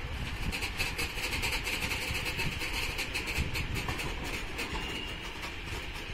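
Train of railway hopper wagons rolling slowly past, with a steady rumble and a dense rattle of metallic clicks from wheels and couplings that thins out in the second half.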